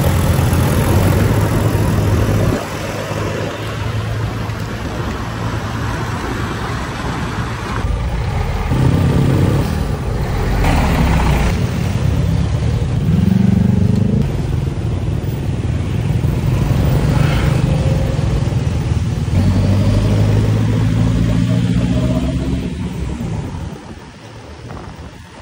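Riding a motor scooter in traffic: wind buffeting the microphone over the running of scooter engines, with an engine note rising and falling a few times. The noise drops away near the end as the scooter slows.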